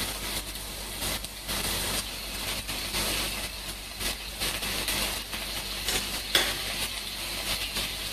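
Cherry tomatoes and garlic sizzling in oil in a steel frying pan as anchovies are dropped in. Light clicks of a fork working the anchovies out of a small glass jar, the sharpest about six seconds in.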